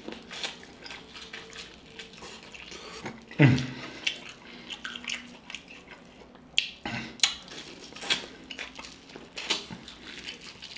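Close-miked wet chewing and lip smacking while eating sauce-soaked boiled corn on the cob: irregular clicky mouth sounds, with a louder one about three and a half seconds in.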